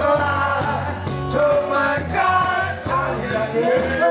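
Live reggae band playing, with a steady bass line under a gliding melodic lead.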